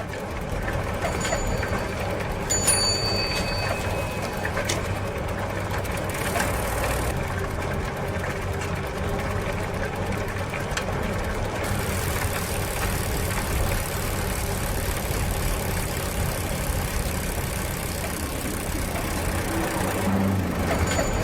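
Bicycle being ridden, its wheels and chain drive running with a steady mechanical noise, with a couple of brief high squeaks near the start.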